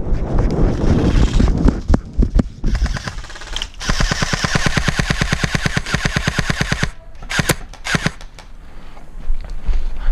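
Airsoft rifle firing a long full-auto burst of rapid, evenly spaced shots, starting a few seconds in and lasting about three seconds, followed by a few single shots.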